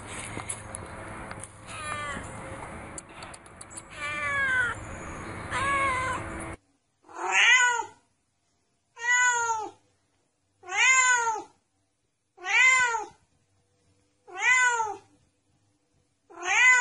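Domestic cat meowing repeatedly. First come a few shorter, falling meows over a steady background hiss. Then, from about six seconds in, six loud drawn-out meows roughly two seconds apart, each rising then falling in pitch.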